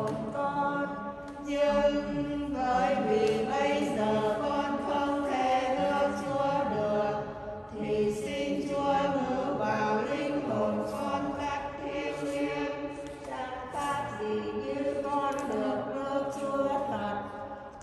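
A church choir singing a slow hymn in long held phrases, with short breaths between them.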